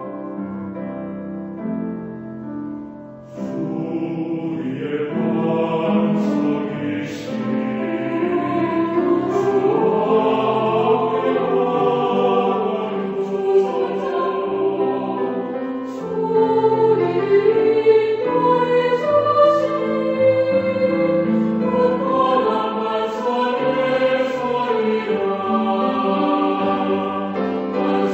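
Mixed choir with piano performing a Korean sacred choral anthem. A held chord fades over the first few seconds, then a soft new phrase begins, and the singing grows louder and fuller toward the end.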